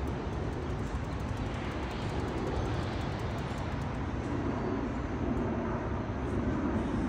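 Steady outdoor background rumble and hiss, heaviest in the low end, swelling slightly in the second half, with no distinct events.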